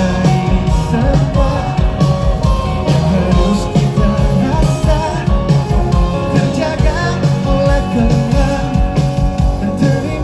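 Live rock band playing through a song's instrumental lead-in: electric guitars over bass and drums.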